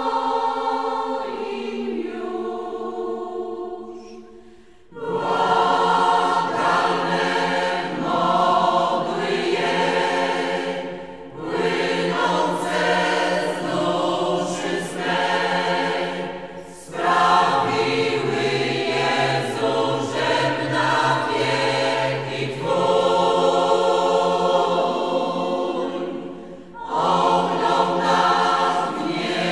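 Choir singing a Polish religious hymn in long held phrases, with brief breaks between them; the sound fades into the first break about four seconds in.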